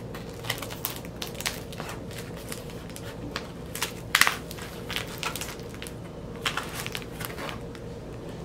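Scissors cutting at a cardboard shipping box and its packing tape, with the cardboard crackling and crinkling as it is worked open. The sound is a run of irregular sharp snips and crackles, the loudest about four seconds in.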